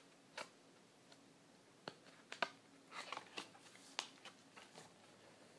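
Faint, scattered clicks and taps of a cardboard board book being handled as its stiff cover is swung open.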